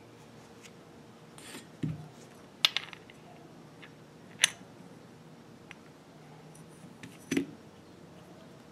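Small metal V-belt pulleys handled on a tabletop: a few sharp metallic clinks as they knock together, and two dull knocks, one about two seconds in and one near the end, as pulleys are set down on the table.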